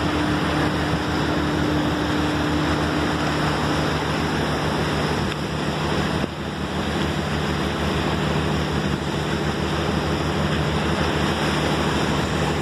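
A boat's engine running steadily, a low hum, under the rush of water breaking along the hull as it moves at speed. A higher tone in the hum fades out about four seconds in.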